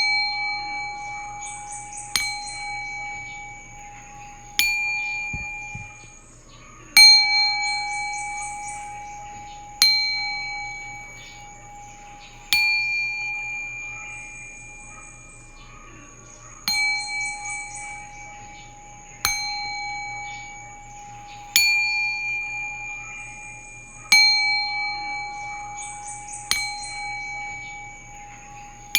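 Singing bowl struck about every two and a half seconds. Each strike rings out with a clear tone and fades slowly, over a faint steady low hum.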